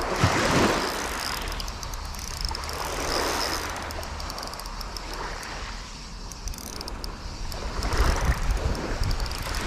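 Small waves washing onto a shingle beach, swelling and easing every few seconds, with wind buffeting the microphone in low rumbles that are strongest near the end.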